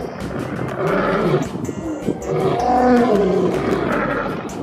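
Repeated growling animal roars, like a big cat's, over background music.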